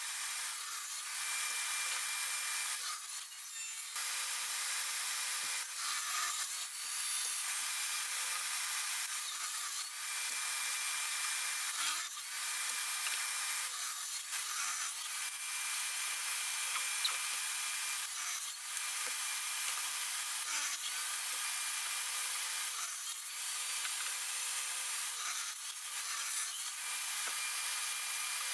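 Table saw running and cutting wooden boards, one pass after another, with brief changes in the sound every few seconds as pieces are fed through.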